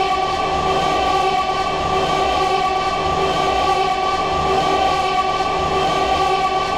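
Saxophone played in reverse: one long held note at a single steady pitch, rich in overtones, sustained evenly.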